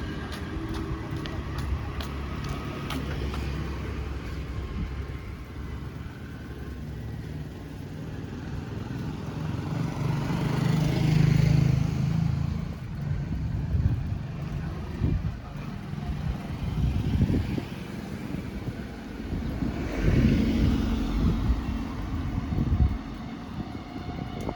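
Road traffic heard from a bicycle: a steady low rumble of engines and tyres from passing vehicles, swelling louder about halfway through and again near the end.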